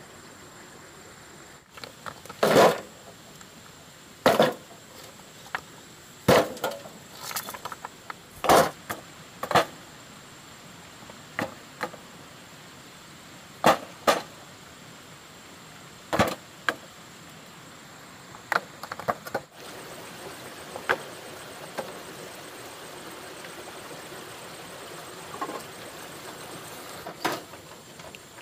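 Irregular knocks and clatters of stones and hand tools handled during cobblestone wall building, about a dozen, louder and more frequent in the first two-thirds, over a steady hiss.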